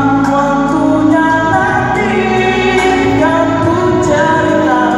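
A man singing a song into a handheld microphone, amplified through a PA loudspeaker, over backing music.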